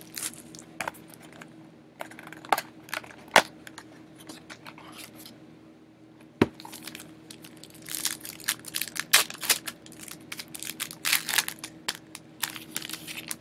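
Plastic trading-card wrapper crinkling and tearing as a box of cards is opened and the pack unwrapped by hand, with scattered sharp clicks and snaps. The rustling is thickest in the second half, over a faint steady hum.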